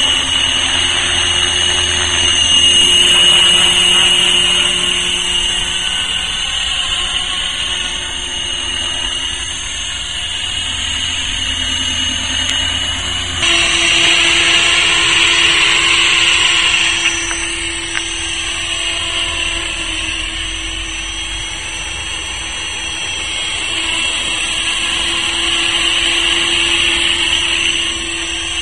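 Electric Tarot 450 Sport RC helicopter in flight: a steady high-pitched whine from its motor and drive gears over the rush of the rotor blades, swelling and fading as it passes near and moves away. The sound changes abruptly about halfway through.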